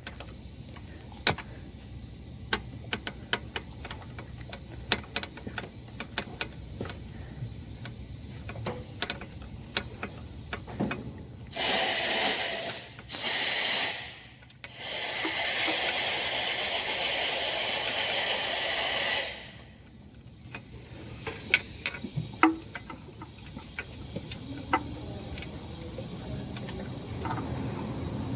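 Scattered light clicks and taps, then three loud spraying hisses, the last lasting about four and a half seconds, followed by a quieter steady hiss.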